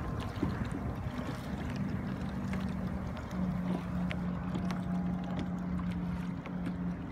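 Kayak moving across open water: a low rumble of water and wind on the microphone, with a few faint ticks and a steady low hum that is clearest through the middle.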